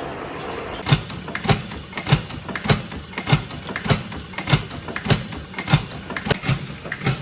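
Stationary steam engine running at a slow, even speed, giving a regular clanking beat about five times every three seconds. The beat starts about a second in, over a steady background hum, with a faint thin high tone.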